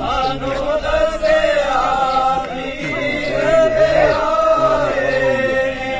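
A group of men chanting dhikr together in unison, a slow melodic line of praise to God carried by many voices.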